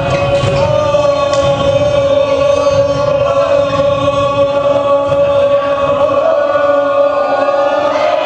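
A group of voices singing together, holding one long note that changes pitch near the end.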